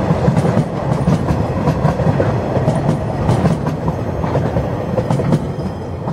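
Empty flat log wagons of a freight train rolling past, their steel wheels rumbling and clicking irregularly on the track. The last wagon passes about four seconds in, and the sound gets a little quieter near the end.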